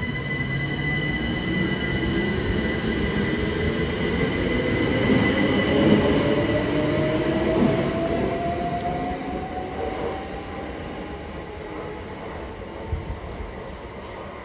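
c2c Class 357 electric multiple unit moving along the platform with a whine that slowly rises in pitch as it gathers speed, over the rumble of its wheels on the rails. It grows louder to a peak about halfway through, then fades as the train draws away.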